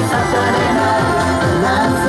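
Pop backing track through a PA system with a singer's live vocal into a handheld microphone.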